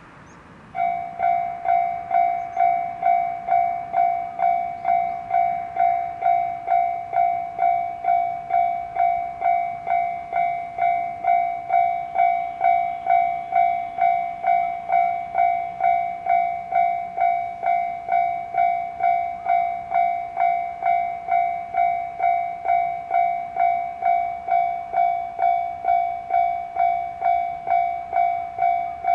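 Japanese railway level crossing's electronic warning bell ringing a steady ding-ding about twice a second, starting about a second in. It is the alarm that a train is approaching the crossing.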